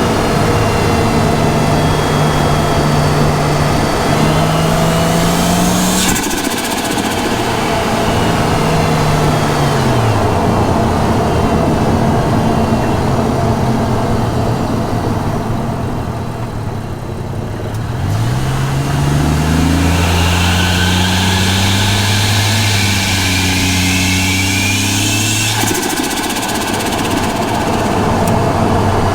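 Ford Falcon G6E Turbo's turbocharged Barra inline-six heard from its engine bay, pulling through the revs with a rising turbo spool whistle. The pull is cut off about six seconds in. After a slower stretch it builds again from about eighteen seconds and drops away sharply near twenty-six seconds, as the throttle is lifted and the turbo flutters.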